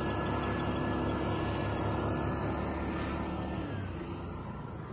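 Mud-Skipper surface-drive mud motor running steadily at speed on a passing boat. It drops away sharply about four seconds in.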